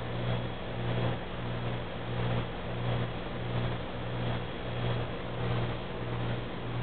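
A machine running with a low hum that swells and fades evenly about one and a half times a second, over a steady hiss.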